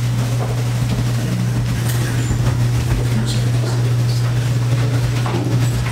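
A loud, steady low hum with no change in pitch or level, over faint voices and people moving about.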